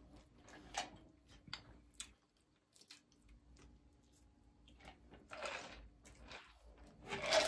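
A person chewing food with soft, scattered mouth clicks and smacks. Faint.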